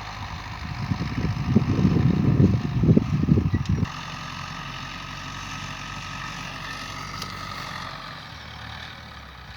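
An engine running, with a loud, rough low rumble that stops abruptly about four seconds in, leaving a steadier, quieter hum.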